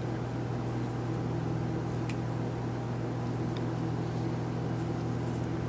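Steady low machine hum of room equipment, with two faint ticks about two and three and a half seconds in.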